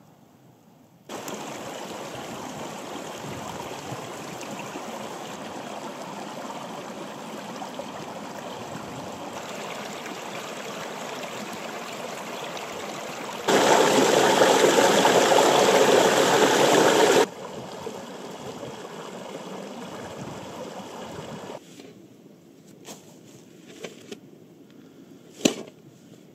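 A mountain stream running over boulders, a steady rushing of water that grows loudest for a few seconds in the middle, where a small cascade pours between mossy rocks. Near the end the water drops away and a few sharp clicks and a knock follow, from trekking poles and a rucksack being handled.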